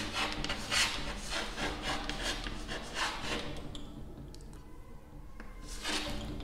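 Chalk scratching on a chalkboard as a word is written in a run of short, quick strokes. There is a pause past the middle, then a few more strokes near the end.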